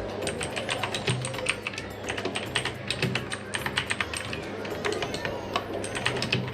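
Fast, uneven typing on an E-Yooso Z686 mechanical keyboard with clicky Outemu Blue switches: a dense run of sharp key clicks, several a second. Background music plays underneath.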